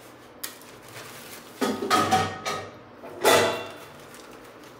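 Stainless steel plates and dishes clattering and a plastic bag rustling as pappadams are taken out and laid on plates of rice. It comes in two bursts, about a second and a half in and about three seconds in, and the second is the louder.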